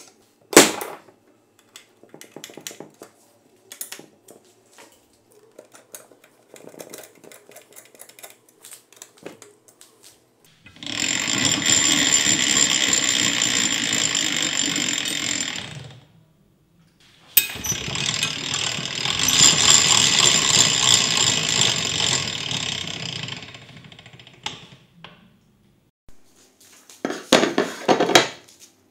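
Ice shaver machine run twice, for about five and then six seconds, a steady rough grinding with a thin high tone that starts and stops abruptly. Scattered small clicks and knocks come before and after.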